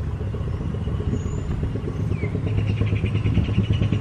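A motor vehicle's engine running close by, growing louder over the last second and a half.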